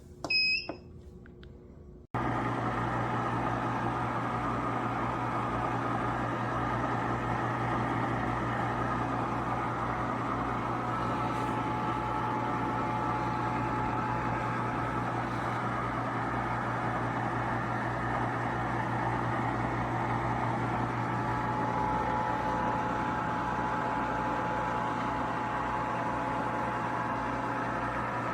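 An electric ice cream maker beeps briefly as it is switched on, then its motor starts abruptly about two seconds in and runs with a steady, even hum and low buzz as it churns.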